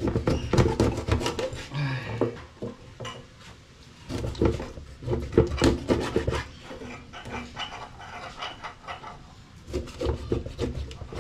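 A knife working a grouper on a wooden board, with irregular scraping strokes and many sharp knocks and clicks.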